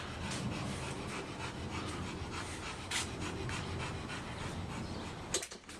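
A dog panting steadily, with a sharp click near the end.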